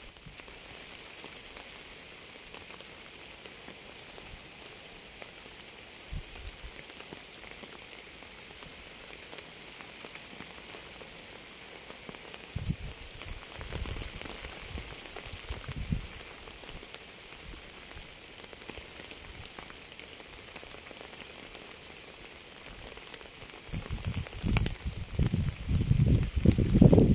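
Steady rain falling, an even hiss. A few brief low rumbles come midway, and a louder, rough low rumble builds over the last few seconds.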